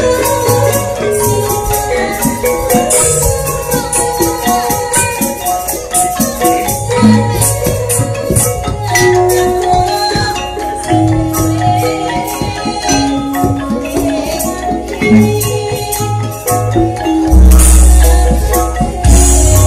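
Javanese gamelan ensemble struck hard: bronze metallophone keys ringing out a busy melody over drum strokes and repeated low gong notes. A deep low stroke comes near the end. The instruments are made of thick bronze and are built to take hard striking.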